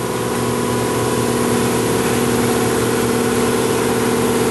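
A machine running steadily nearby: a constant engine-like drone with a steady hum.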